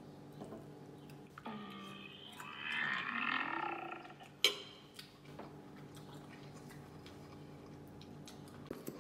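Quiet eating at a table: small clicks of a fork against a plate over a steady low hum, with one sharper clink near the middle. About a second and a half in, a wavering pitched sound lasts roughly two and a half seconds.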